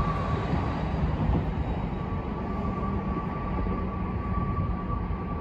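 Subway train approaching on elevated track: a steady low rumble of wheels on rail with a thin, steady high squeal that drops out just after the start and comes back about two seconds in.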